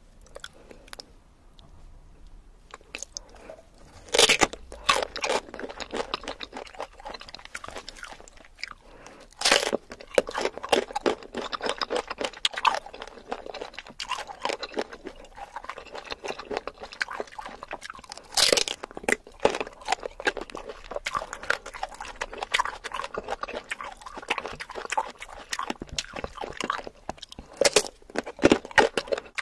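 Biting into and chewing crunchy sour mango: a steady run of crunches, with four loud bites about 4, 9½, 18½ and 28 seconds in.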